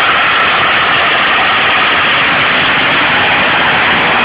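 Farmtrac 65 tractor's diesel engine running steadily while driving an 8-foot rotavator that churns through the soil, a loud, even, noisy din without pauses.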